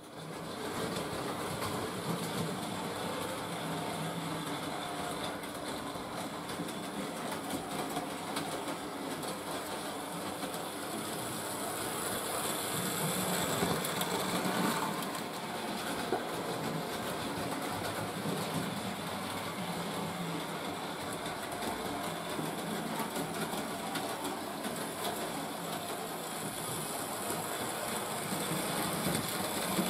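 Hornby Dublo three-rail tinplate model trains running: a steady whirr of the locomotive motors with a dense rattle and clatter of wheels over the loose-laid track. The sound swells for a couple of seconds around halfway as a train passes close.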